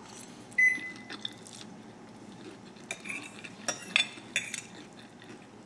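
Metal fork clinking on a ceramic plate of spaghetti. One ringing clink about half a second in, then a few lighter clicks and scrapes a little past the middle as the fork twirls the pasta.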